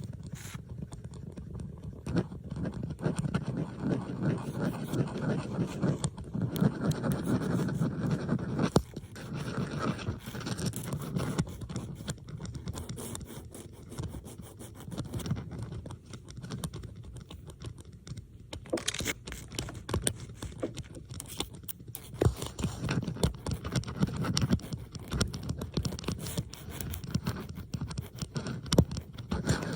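Bobby pins handled close to the microphone, in layered ASMR recordings: dense scratching and clicking of the metal pins. It swells and fades, is quieter in the middle, and has a few sharper clicks.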